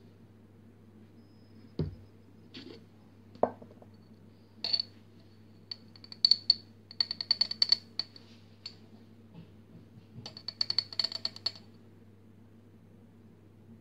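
A metal spoon clinking and scraping inside a small glass jar of salt, in two runs of quick light taps with a bright ring, after a few single knocks.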